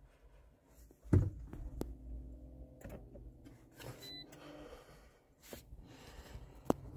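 Toyota Yaris Hybrid powering up after its start button is pressed: a sharp thump about a second in, then a low steady hum with faint steady tones, and a single click near the end.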